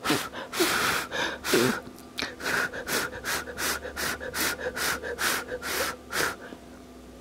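A person blowing in a long series of short puffs on hot food to cool it, the puffs coming about three a second and stopping about six seconds in.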